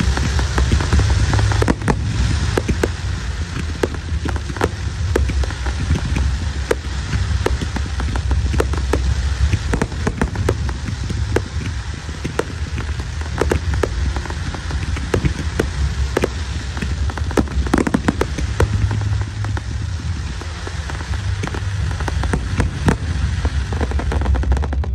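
Aerial fireworks crackling: a dense, continuous patter of small pops and sharp cracks from crackling stars and rising comets, over a steady low rumble.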